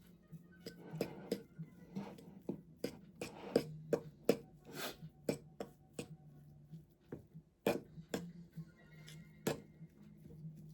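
Irregular knocks and clatter of kitchen utensils and dishes during cooking, about one or two sharp strikes a second, over quiet background music and a low steady hum.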